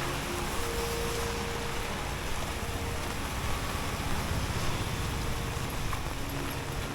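Busy street ambience: a steady hiss of passing traffic with tyres on wet pavement, and a faint held tone about a second in.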